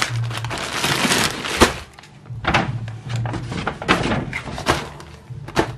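Plastic packaging on packs of sausages crinkling and rustling as it is handled, in several bursts of crackle with a sharp knock about one and a half seconds in.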